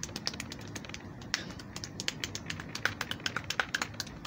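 Amateur beatboxing into cupped hands: a rapid, uneven run of sharp mouth clicks and pops, a few of them with a brief pitched pop.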